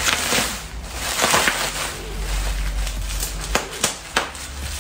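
Plastic bubble wrap crinkling and rustling as it is pulled and torn open by hand, with a few sharp clicks in the second half.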